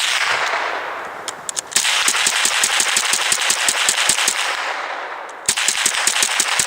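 A .22 rifle fired in rapid fire, about eighteen rounds, shots coming quickly at about five a second with an echoing tail after each. There is a short pause a little after four seconds in, then another fast string near the end.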